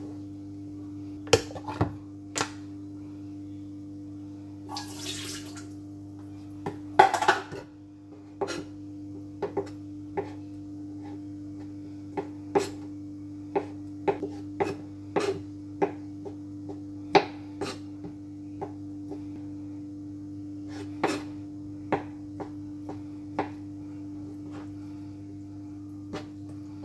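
Kitchen knife chopping on a plastic cutting board: irregular sharp taps, about one or two a second, with a louder clatter about seven seconds in, over a steady low hum.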